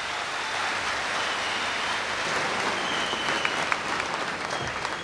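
Large audience applauding steadily, with a few sharper individual claps standing out in the second half.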